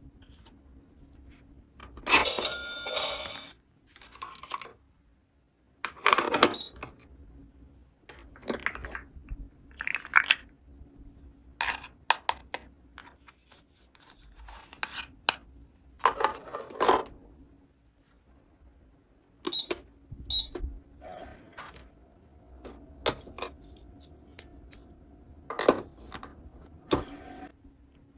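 Small plastic toy playset pieces being handled, snapped and set down: an irregular series of clicks, taps and short rustles over a faint steady hum.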